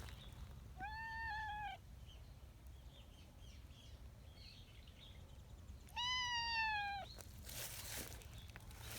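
Brown tabby cat meowing twice in a high-pitched, husky voice, each meow about a second long, rising then falling slightly in pitch. These are affection-seeking meows.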